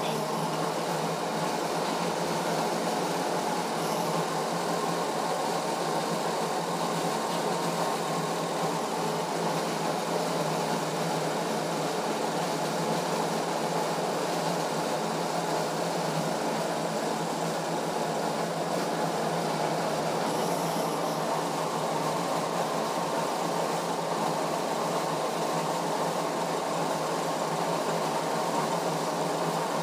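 Diesel injection-pump calibration test bench running steadily, driving an Isuzu 4JB1 injection pump.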